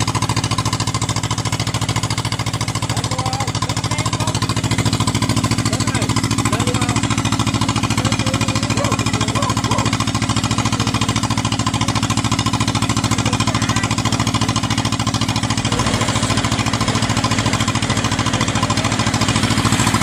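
Diesel engine running steadily with a fast, even chugging beat, shifting a little about three-quarters of the way through.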